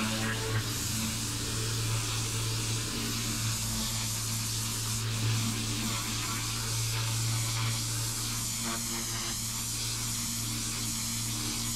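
Pressure washer running, its lance jet hissing steadily as it sprays paving slabs clean, over a constant low motor hum.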